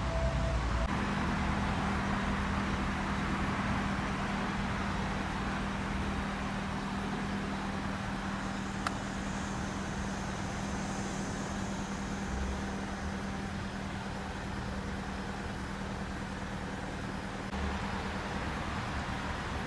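Steady outdoor street background noise with traffic, and a low steady hum that comes in about a second in. A single sharp click sounds about halfway through.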